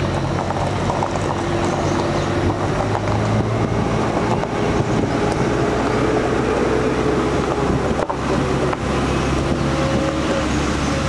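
A safari vehicle's engine running steadily, its pitch rising and falling gently as it drives, with a brief dip in level about eight seconds in.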